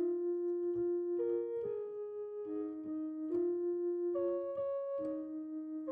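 Slow background music on a keyboard, with held notes and chords that change about once a second.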